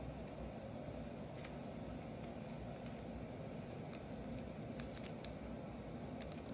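Faint, scattered light clicks and scrapes of trading cards being handled, over a steady low room hum.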